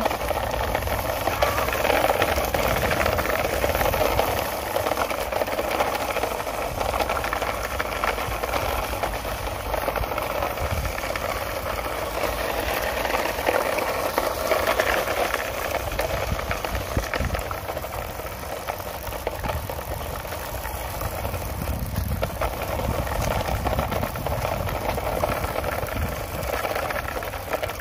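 Tenspeed 9522-3 RC car's motor and gears running: a steady, noisy mechanical buzz whose loudness rises and falls slightly.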